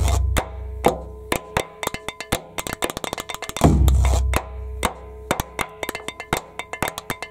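Percussion music on natural instruments: fast, irregular wooden clicks of sticks struck together, with a deep stroke on a skin-headed drum about three and a half seconds in (another is still sounding at the start), over a steady held tone.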